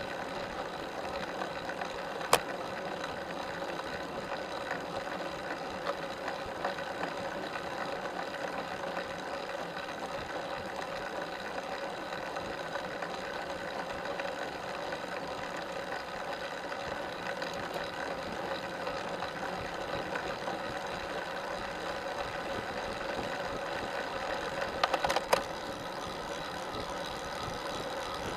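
Steady mechanical whir of a road bicycle's chain and drivetrain under pedalling, carried through the camera mount, with a sharp click about two seconds in and a brief rattle of clicks near the end.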